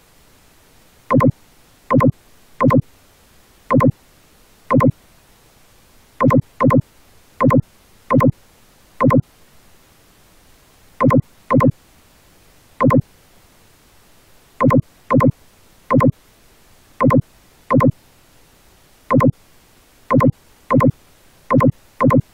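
Short computer beeps, all of one pitch, about two dozen at irregular intervals, loud over a faint background hiss.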